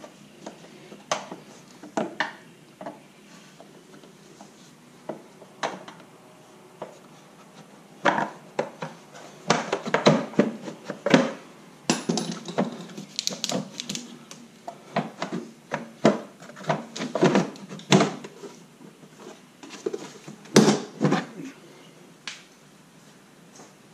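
Irregular clicks, knocks and scrapes of hard plastic and metal as a plastic battery cover is pried loose with a flathead screwdriver and lifted off, coming in bunches through the middle of the stretch.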